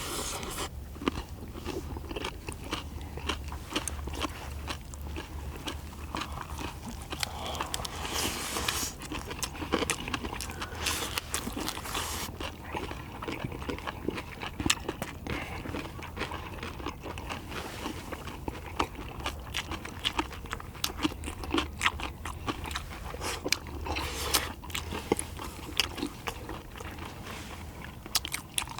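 Close-up eating sounds: chewing and biting into a spicy stir-fried small octopus meal, with many irregular wet clicks and smacks.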